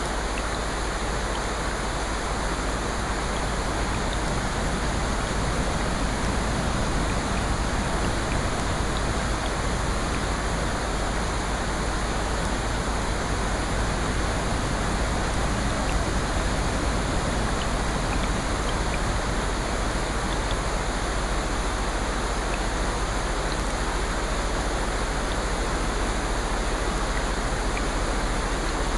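Steady, even hiss of falling rain, with no swells or pauses.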